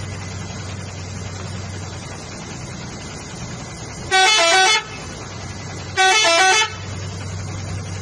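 A vehicle horn honks twice, each blast under a second long and about two seconds apart, over the steady low hum of an idling engine.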